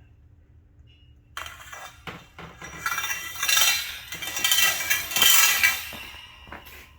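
Steel shelving post being slid through a metal rack shelf's corner, metal scraping and clinking against metal, starting about a second and a half in.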